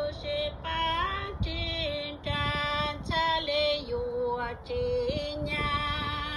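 A woman singing, holding long notes that slide up and down between pitches, with short breaks between phrases.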